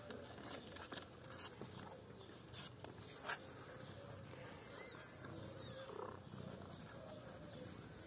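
A few faint, wavering mews from young kittens nestled under their tabby mother, with a handful of soft clicks and rustles in the first few seconds.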